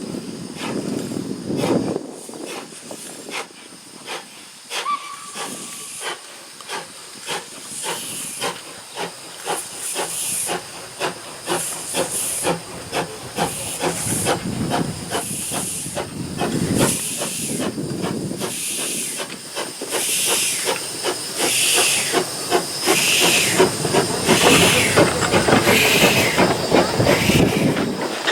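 Steam locomotive working under steam, with a constant hiss of steam and a regular chuffing exhaust. The beats come quicker and get louder toward the end.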